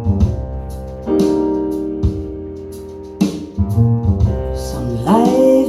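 Recorded song playing: a piano-led intro with sustained chords over a bass line and sharp drum hits, played back through a class D amplifier under test.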